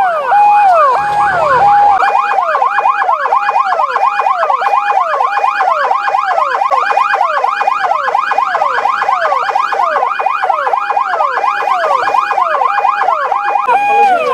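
Several ambulance sirens sounding at once, each repeating a quick cycle of a held tone that then drops in pitch, the cycles overlapping into a loud, continuous electronic wail.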